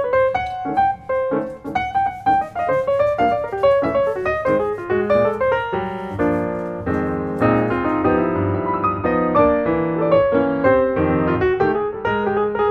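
Background piano music: a steady run of melody notes over chords.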